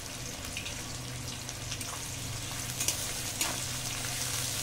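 Sliced onions sizzling steadily in hot mustard oil in an aluminium kadai, with a few short scrapes of a metal spatula stirring them against the pan.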